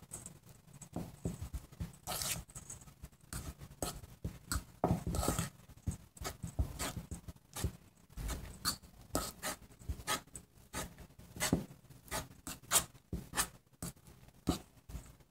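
A spoon or utensil clicking, tapping and scraping irregularly against a bowl as cheese is tipped in and worked into softened butter.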